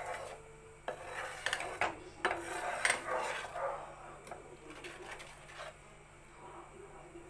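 Spatula stirring and scraping a thick peanut butter mixture around a pan, in irregular strokes with small knocks against the pan. The strokes are firmer in the first few seconds and softer after that.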